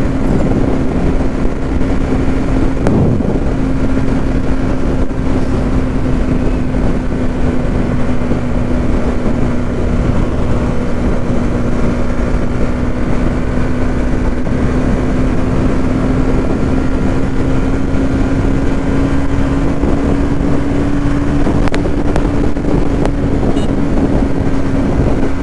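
Bajaj Pulsar NS200's single-cylinder engine running at a steady cruise, heard from the rider's seat, with wind rushing over the microphone. The engine note holds steady, dipping slightly in pitch through the middle and rising back a little near the end.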